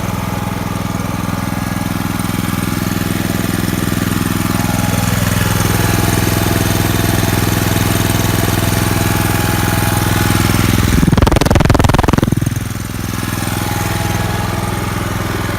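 Honda EB2800i inverter generator running steadily on Eco Throttle, its engine held at low speed. About eleven seconds in, a louder noisy rush lasts roughly a second and a half over the steady running.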